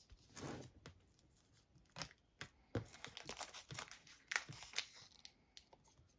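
Thick plastic wrap being peeled and torn off a cardboard box, crinkling in fits and starts, with sharper tearing sounds about two seconds in and again between four and five seconds in.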